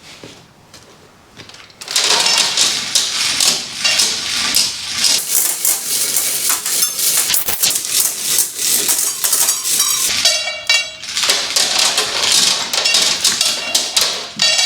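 Loud, irregular metallic scraping and clattering from metalwork on a hydraulic winch, starting abruptly about two seconds in.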